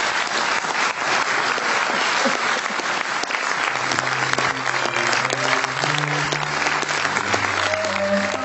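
Audience applauding steadily, a dense crackle of many hands clapping. From about halfway through, music with low held notes comes in underneath.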